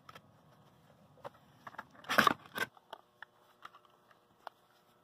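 Light plastic clicks and taps from handling a black Raspberry Pi case and setting the board into it, with one louder, longer rustling noise just after two seconds in.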